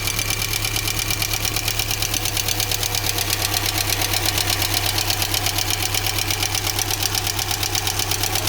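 UMZ-4216 four-cylinder petrol engine idling with its rocker gear exposed, with a rapid, even valve-train clatter. The valves are knocking because oil is barely reaching the rocker shaft, leaving the rockers dry with large valve clearances; the mechanic suspects a blocked oil channel or a wrongly fitted gasket.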